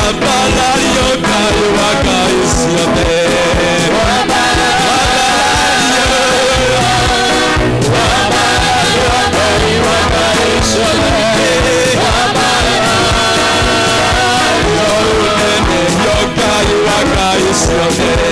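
A man singing a praise song into a handheld microphone over loud backing music with a steady drum beat.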